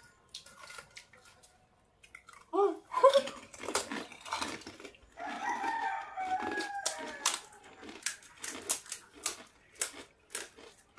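A rooster crowing: short clucking calls about two and a half seconds in, then one long crow with a slight fall in pitch about five seconds in. After it comes a run of sharp clicks and crackles as crisp puri shells are pressed open by hand.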